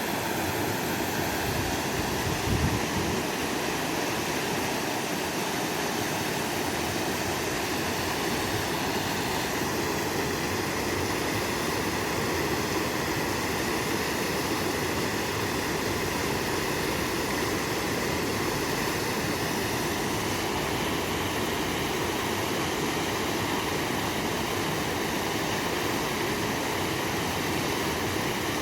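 River water rushing past in a steady, unbroken noise, with a small thump about two and a half seconds in.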